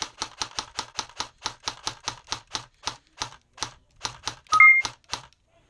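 Airsoft gun firing semi-automatic in a rapid string of sharp cracks, about five shots a second, easing off slightly before stopping near the end. A short two-tone electronic beep sounds about four and a half seconds in, the loudest moment.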